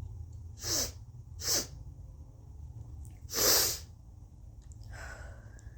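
Short, sharp bursts of air through the nose as a turmeric-dipped tissue tickles inside the nostril: two quick ones near the start, then a louder, longer one around the middle, and a fainter one near the end.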